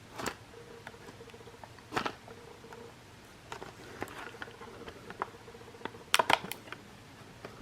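A knife cutting through tape on toy packaging: a few short scratchy scrapes and crackles of plastic and card, the loudest cluster about six seconds in, over a faint steady hum.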